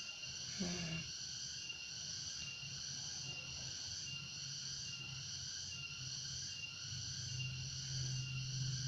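Steady high-pitched chorus of crickets in the background, with a low hum underneath that grows a little louder near the end.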